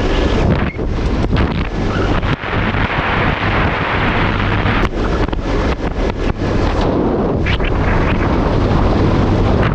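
4x4 driving fast through thick sand: the engine running steadily under load, with wind buffeting the microphone and repeated knocks and rattles as the vehicle bounces over the track.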